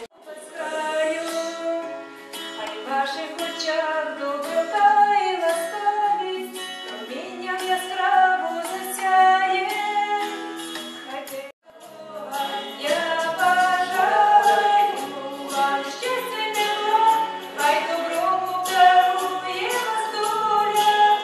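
A woman singing a song, the sung melody running on with one very short drop-out a little past halfway.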